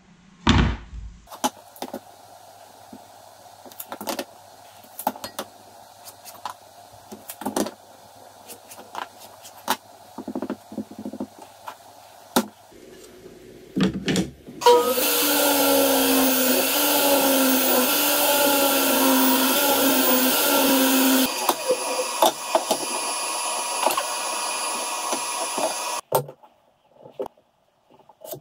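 Jobsite table saw running and cutting through an African mahogany board for about ten seconds. The sound is louder for its first part and lighter after about six seconds, and it stops abruptly. Before it come light knocks and taps from boards being handled and set down.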